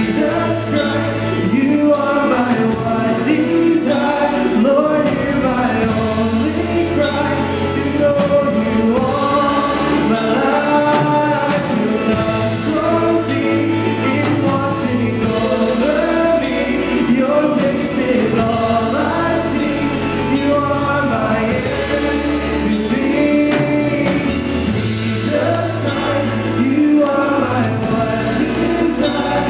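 Live worship band playing a song: a man singing the lead over electric and acoustic guitars, bass guitar and drums.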